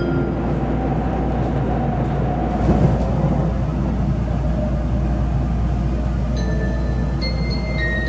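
Steady low rumble of a Tokaido Shinkansen train running at speed, heard from inside the passenger car. There is a short bump about three seconds in, and a few high melody notes come in near the end.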